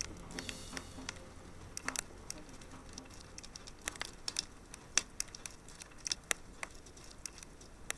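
Wood fire crackling: irregular sharp pops and snaps over a soft hiss.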